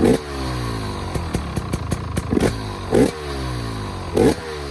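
2025 GasGas EC300 GP's two-stroke engine, exhausting through a newly fitted spark arrestor insert, idling and blipped four times, the revs falling back after each blip. The blips come once at the start and then three in quick succession in the second half, with light popping ticks at idle between.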